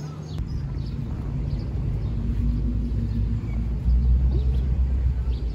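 Low rumble of a vehicle engine with a steady hum, getting louder and swelling about four seconds in, over faint bird chirps.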